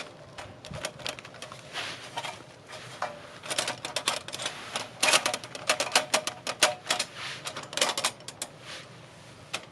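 Wood fire crackling, with quick irregular pops and snaps that come thickest in the middle.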